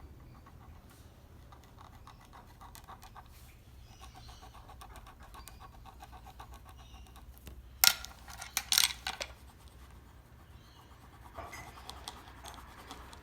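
Scribbling on paper, quick back-and-forth strokes as an area of the drawing is coloured in black. About eight seconds in, a brief burst of loud sharp clicks and rustling.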